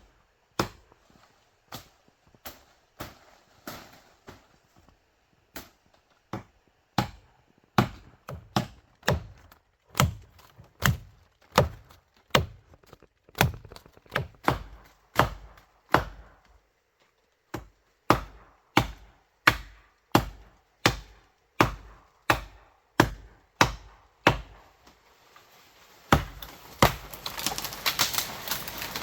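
Bamboo being chopped with a blade: a long series of sharp chops, about one every half second to a second, with a few short pauses. Near the end the chops give way to a longer, rougher noisy stretch.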